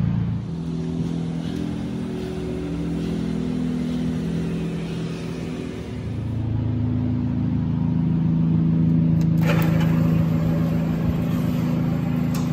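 A car engine running at low speed, heard from inside the car as a steady hum that grows louder about six seconds in. About nine seconds in, a wider hiss suddenly comes in and stays.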